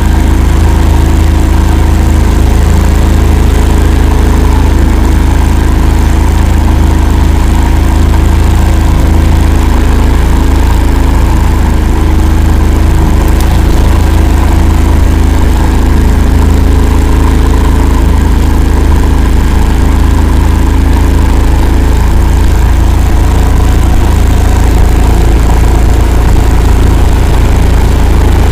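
Engine of an 'Akula' all-terrain vehicle running steadily while driving through a bog, loud with a heavy low rumble; the pitch shifts slightly near the end.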